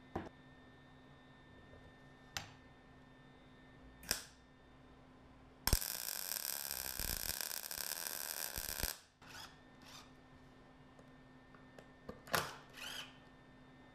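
Electric welding arc on steel, running steadily for about three seconds from about six seconds in as round bar is welded to flat bar. Short clicks and knocks of handling come before and after it.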